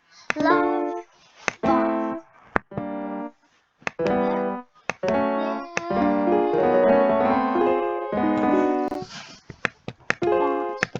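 Music played on an electronic keyboard: a string of separate held notes and chords, each starting sharply, with a longer run of overlapping notes in the middle.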